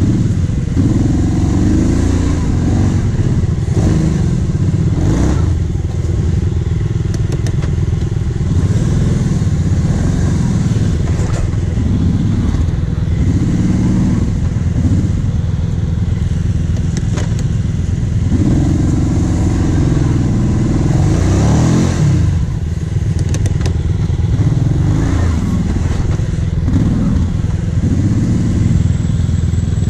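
Quad (ATV) engine running close by, idling with repeated throttle revs that rise and fall in pitch.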